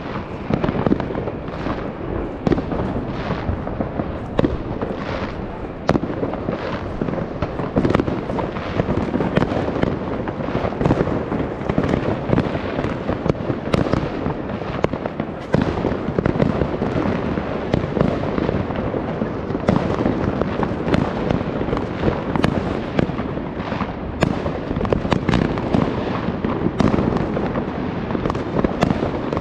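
A dense, continuous barrage of New Year fireworks and firecrackers: many overlapping bangs and pops each second, with no pause.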